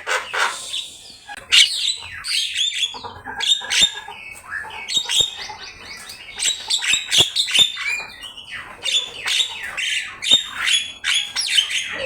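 Black-winged myna (jalak kebo) singing prolifically: a rapid, unbroken stream of varied chattering notes, harsh squawks and sweeping whistles, filled out with mimicked phrases.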